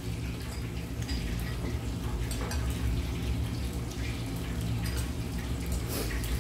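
Scattered light clicks of chopsticks and dishes at a table over a steady low hum of room noise.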